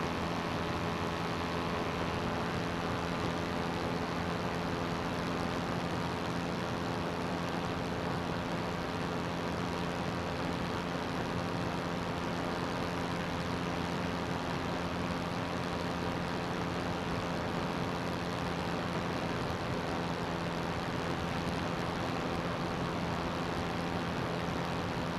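CGS Hawk ultralight's engine and propeller running steadily at constant speed, under a constant rush of air.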